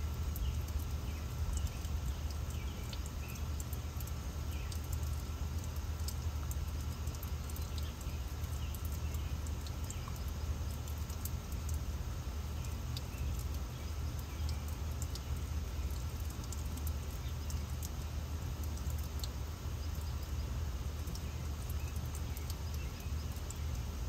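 Garden ambience: a water fountain running steadily under a low, continuous rumble, with faint, scattered bird chirps.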